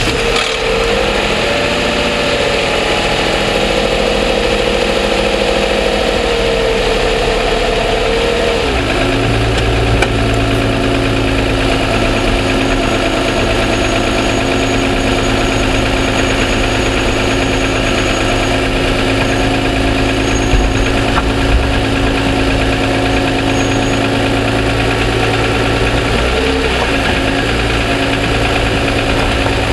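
A 2007 Toyota Sienna's 3.5-litre V6 idling from a cold start, heard close up from a microphone in the engine compartment, with the engine ticking the dealer attributes to piston slap. Its pitch drops about nine seconds in.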